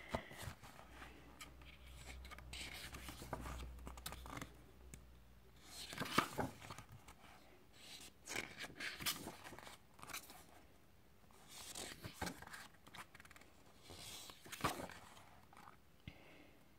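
Pages of a glossy photobook being turned and handled by hand: faint paper swishes and rustles, several separate page turns.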